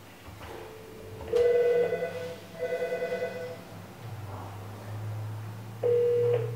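Telephone ringing: an electronic warbling ring in two bursts, with a plain beep-like tone before them and another near the end.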